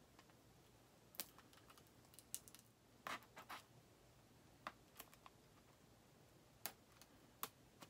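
Plastic wrapping on a vinyl record box set being cut open: faint, irregular clicks and crinkles, a dozen or so scattered sharp ticks.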